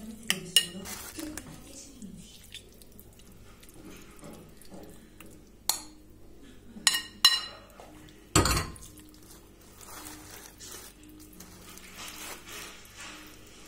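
A metal spoon clinking and scraping against a ceramic bowl and a metal baking pan as a filling is spooned out, with a few sharp clinks and one heavier knock about eight seconds in.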